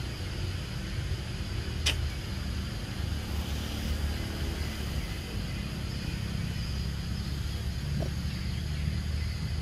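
Steady low background rumble with faint hiss, and a single sharp click about two seconds in.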